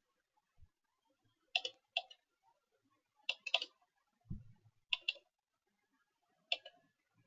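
Computer mouse clicks, mostly in close pairs, every second or two, with a soft low thump about four seconds in.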